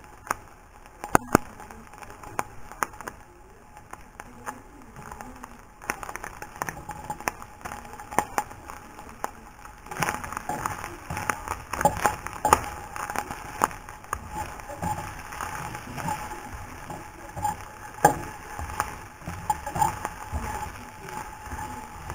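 Bacon and garlic sizzling and crackling in a frying pan, with sharp clicks and knocks of a spatula against the pan. It gets busier and louder about ten seconds in as celery is turned in the pan.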